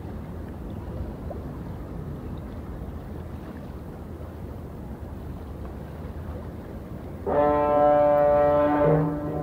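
Harbour ambience with a low, steady rumble and water lapping, then a ship's horn sounds one loud, steady blast about seven seconds in, lasting under two seconds.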